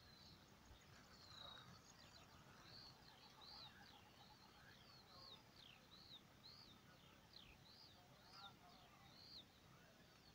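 Faint birdsong: a small bird repeating short, high, arched notes about one and a half times a second over quiet open-air background.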